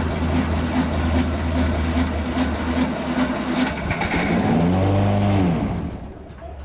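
Craftsman 190 cc push mower engine running steadily after an electric key start, showing the key start now works on a charged battery. About four seconds in its pitch rises and falls, and near the end the sound dies down.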